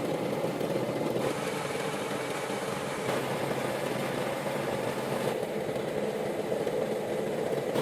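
Steady machinery running noise, a continuous low hum whose character shifts abruptly several times.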